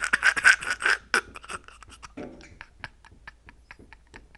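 A bird striking and fluttering against window glass: a rapid run of sharp taps in the first second that thins to scattered taps, with a man's short breathy laugh at the start.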